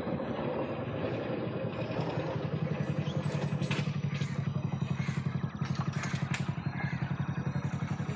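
Small commuter motorcycle engine slowing as the bike pulls up, then idling with a quick, even putter. A few sharp clicks and clatters come in the middle.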